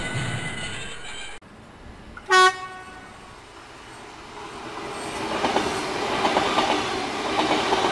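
O-scale model of a Mumbai AC local electric train running on its track. Its running sound stops abruptly about a second and a half in; a short horn toot comes just after two seconds and is the loudest sound; then a clicking rattle of wheels on the track grows louder as the model train approaches.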